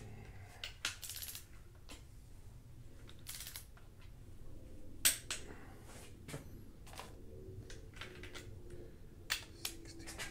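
Sharp metallic clicks and knocks from a long torque wrench and socket being fitted to and tightened on VR6 cylinder head bolts, in sequence. The loudest click comes about five seconds in.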